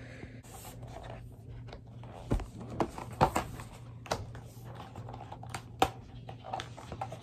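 Cardboard product box being handled and opened by hand: irregular small clicks, taps and scrapes of cardboard, over a faint steady low hum.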